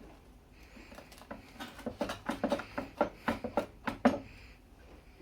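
A crisp baked mini pizza being cut, a quick run of crunching cracks through the crust between about one and a half and four seconds in, the loudest crack at the end.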